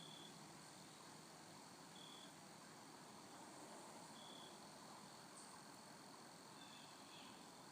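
Near-silent woodland ambience. A faint, short high chirp repeats about every two seconds over a faint steady high hum, with a few quicker chirps near the end.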